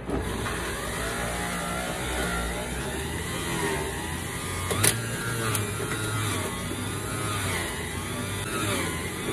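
Electric centrifugal juicer switched on and running, its motor note wavering as parsley is pressed down the feed chute with the pusher. A sharp knock sounds about five seconds in.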